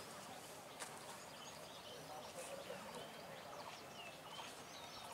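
Faint, scattered bird chirps over quiet outdoor background, with one soft click about a second in.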